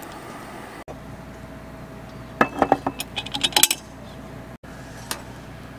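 A quick run of metallic clinks and clatter from cooking utensils knocking against camp cookware, lasting about a second midway, with one more small clink near the end.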